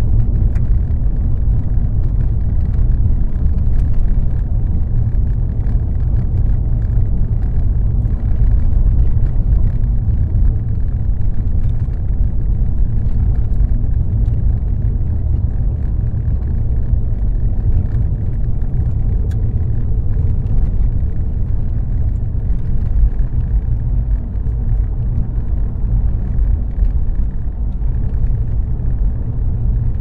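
Car driving along the road: a steady low rumble of road and engine noise that holds even, with no distinct events.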